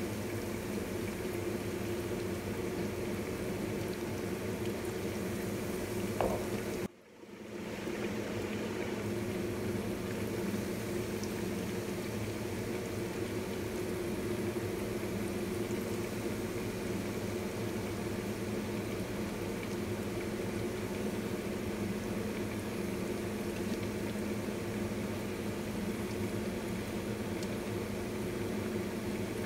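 Battered pork chops deep-frying in hot oil in a stainless steel wok: steady sizzling and bubbling. About seven seconds in the sound drops out suddenly for about a second and fades back in.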